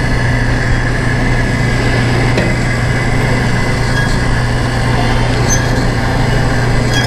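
IDEXX Quanti-Tray Sealer running, its motor drawing a filled Quanti-Tray in its rubber mat through to seal it: a steady low machine hum.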